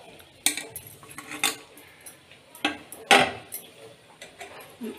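A metal plate clanking and scraping against a stone countertop as it is handled and set down: several sharp metallic knocks, the loudest about three seconds in.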